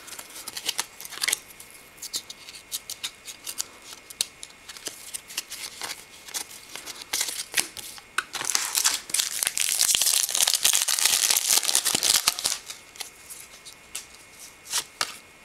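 Trading cards being handled and flipped, with light scattered clicks of card stock. About eight seconds in, a card pack's wrapper crinkles and tears open for a few seconds, the loudest part, before the cards are handled again.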